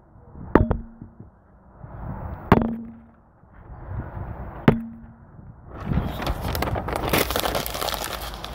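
Three sharp knocks, each followed by a brief low ring, as things are handled on the table; from about six seconds in, a steady crackling rustle of wrapping being handled.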